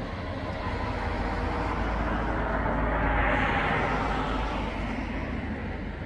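A vehicle passing by: a rushing noise that swells, is loudest about three seconds in, then fades, over a steady low rumble.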